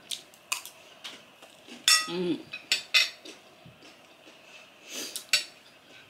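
Metal spoon and fork clinking and scraping on a ceramic plate of rice: a handful of sharp clinks, one ringing briefly about two seconds in. A short hum from the eater comes just after it, and there is chewing.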